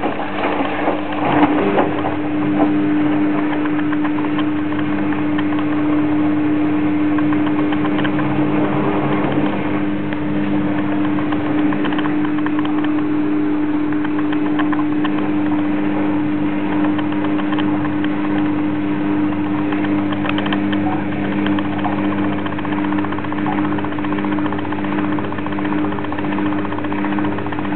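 Balay washing machine running, its motor giving a steady, unchanging hum, with some rattling in the first few seconds.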